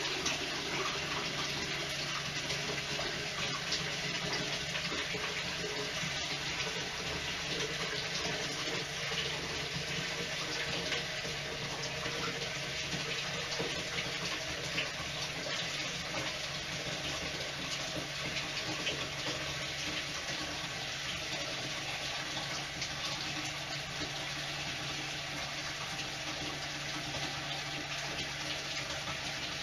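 Bathtub faucet running steadily into a plastic bucket, filling it with water, with a faint steady low hum underneath.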